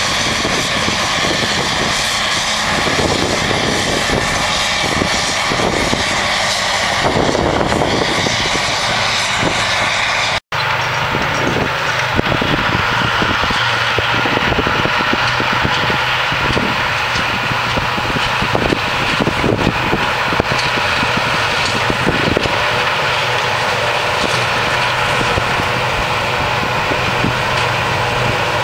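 New Holland self-propelled forage harvester working alongside its tractor and trailer: a loud, steady machine drone with a high whine of several held tones. The sound breaks off for an instant about ten seconds in.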